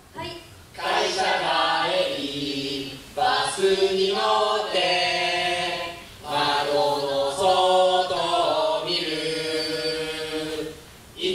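Voices singing a cappella in long held notes, like a chant, in three phrases of a few seconds each with short breaks between.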